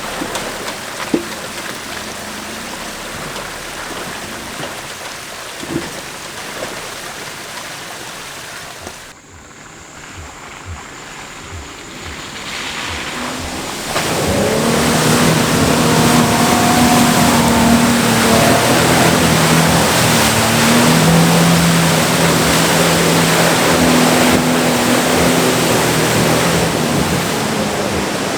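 Jeep Wrangler JK on 35-inch tires in a muddy water pit: engine running with water and mud splashing and churning, getting louder and denser from about halfway through.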